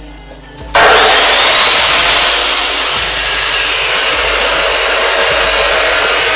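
Abrasive cut-off saw (chop saw) cutting through a steel bar: the noise starts suddenly about a second in and runs loud and steady as the abrasive wheel grinds into the metal.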